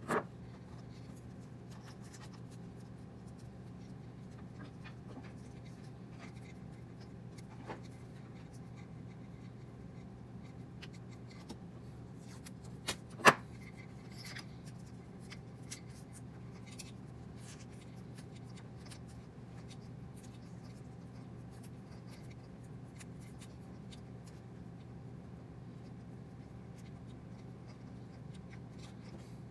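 Hands working on small wires and tools: scattered light clicks and rubbing, with one sharper click about thirteen seconds in, over a steady low hum.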